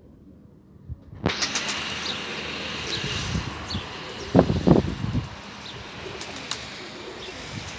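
Domestic pigeons at a rooftop loft: wings flapping and cooing, with short bird chirps, over a steady rushing noise that starts suddenly about a second in.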